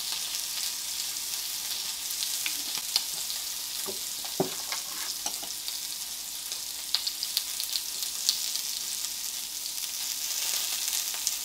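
Meat sizzling on a small stainless-steel tabletop grill plate, a steady hiss, with light clicks and taps from chopsticks turning the pieces and a small knock about four seconds in.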